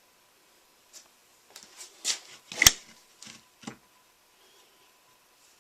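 Short scrapes and light knocks from hands handling workpieces and tools on a shop bench, with one sharp knock about two and a half seconds in.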